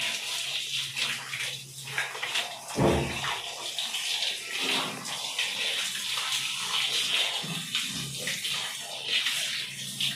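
Water running steadily from a hand-held shower hose, spraying onto a wet dog's coat and a tiled floor, with one dull thump about three seconds in.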